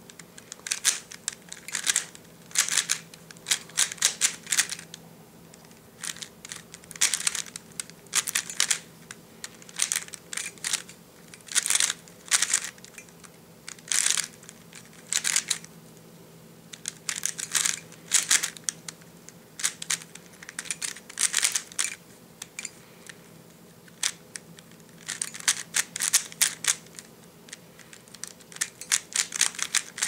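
DaYan GuHong 3x3 plastic speed cube being turned fast by hand: quick runs of clicking clacks as the layers snap round, in bursts of a second or two with short pauses between.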